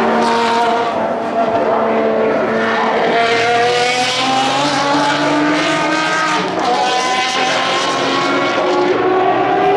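Ferrari 599XX track car's V12 engine running hard at high revs. Its pitch slides down for the first couple of seconds, then climbs steadily through the last few seconds as the car accelerates.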